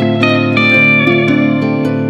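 Soothing instrumental background music: held melody notes over steady low notes, with a light ticking beat.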